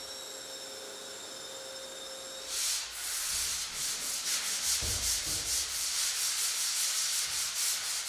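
A steady high whine cuts off about two and a half seconds in. It is followed by hand sanding of dried drywall joint compound on a ceiling corner: quick back-and-forth scratching strokes, about three or four a second.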